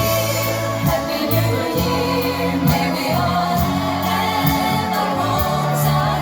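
Music with singing over held bass notes and a steady beat.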